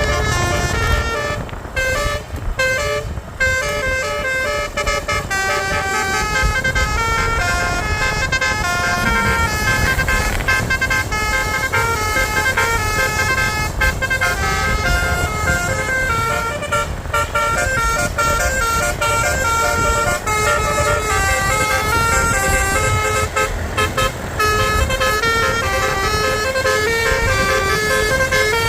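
Basuri telolet bus horns playing a continuous melody of short stepped notes that change pitch several times a second, over the low rumble of the bus engine and road.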